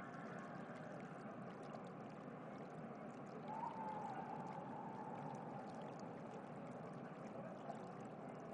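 Faint, steady ambience of running water, like a stream, with a soft swell about three and a half seconds in.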